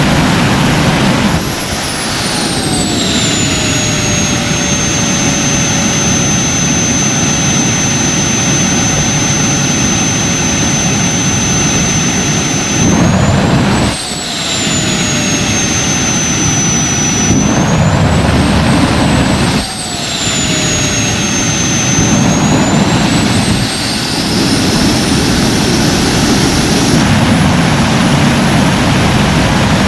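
Handmade turbojet engine running with a steady roar, starting at full power with the afterburner lit. Its high turbine whine falls in pitch about a second and a half in as the throttle is pulled back. It then rises and falls again a few times, and climbs steadily near the end as the engine spools back up.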